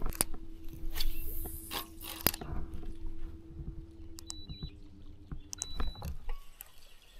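Spinning reel being cranked: a steady mechanical whir with scattered clicks, changing pitch about four seconds in and stopping about six seconds in.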